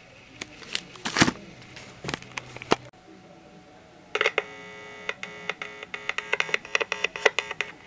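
A few scattered sharp clicks, then from about four seconds in a steady electrical buzz with a rapid, irregular crackle from the speaker of a vintage Oremaster scintillation counter. The amplifier is live and noisy, but the counter gives no ticks in answer to the strobing light of the remote.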